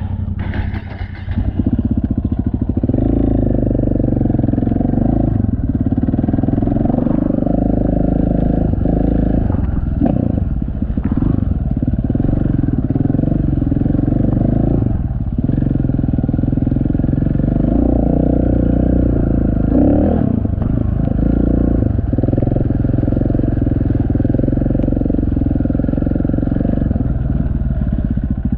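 Enduro motorcycle engine running under throttle while the bike is ridden over a dirt track. It is quieter for the first couple of seconds, then steady, and eases off briefly a few times near the middle.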